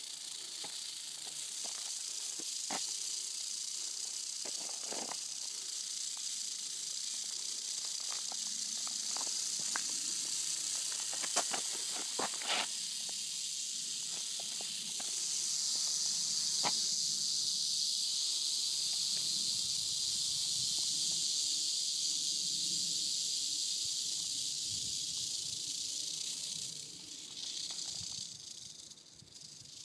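Eastern diamondback rattlesnake rattling its tail in a continuous high buzz that grows louder about halfway through and falters briefly near the end. A few sharp clicks and snaps sound over it in the first half.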